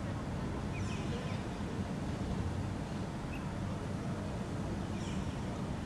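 Steady low rumble of distant traffic, with a few faint, short bird chirps about a second in and again near the end.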